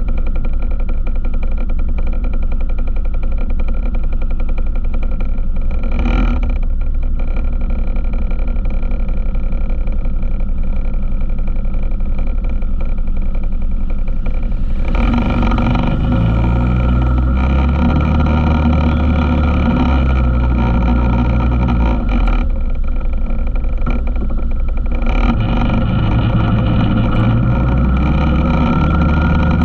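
ATV engine running while riding. It picks up about halfway through with the pitch shifting as the throttle changes, eases briefly a little later, and picks up again.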